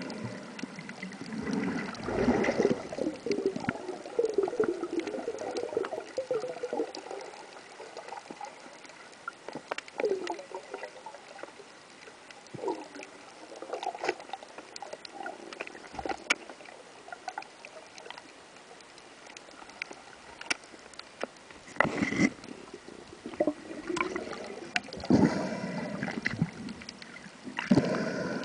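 Underwater water noise picked up by a camera carried through a reef cavern: irregular gurgling and bubbling, with scattered faint clicks. It swells in louder spells about two seconds in and again near the end.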